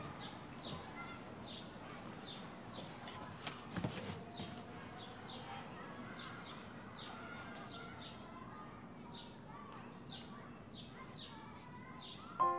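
Faint bird chirping: a steady run of quick, short falling chirps, about two or three a second, with a single soft thump about four seconds in.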